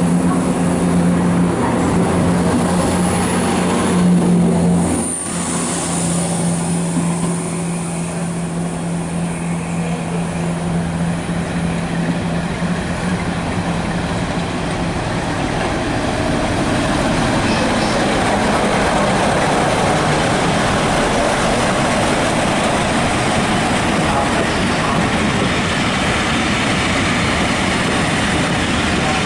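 Class 47 diesel-electric locomotive running steadily as it approaches, its engine note fading after about half the time, then giving way to the noise of its passenger coaches' wheels rolling past on the rails.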